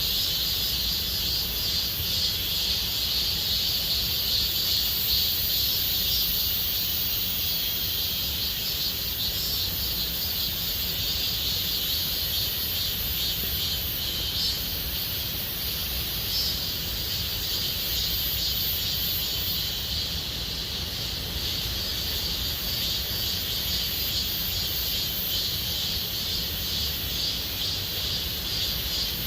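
Cicadas singing in a dense, continuous chorus: a steady high buzz, with a faster pulsing layer coming in higher up partway through.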